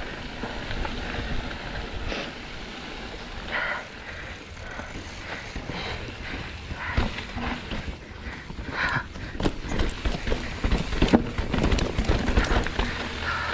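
Mountain bike clattering and rattling down a rocky trail, with irregular knocks from the wheels striking rocks over a steady rumble of tyre and wind noise.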